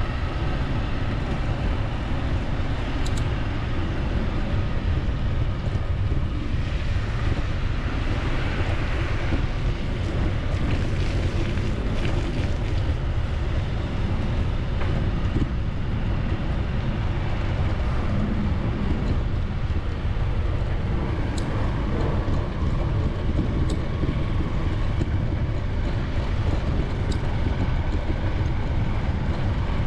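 Steady low outdoor rumble with an even hiss above it and a few faint ticks scattered through it.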